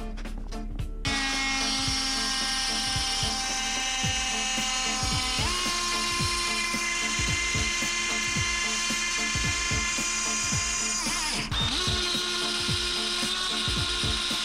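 Small high-speed power tool, such as a die grinder, starting about a second in and running with a steady whine. Its pitch steps up partway through and dips briefly near the end as the load on it changes.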